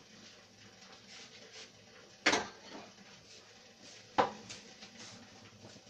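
Two sharp clanks of kitchenware being handled, about two seconds apart, over a quiet room.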